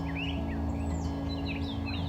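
Small birds chirping in quick, short, sweeping calls over soft acoustic background music with held low notes.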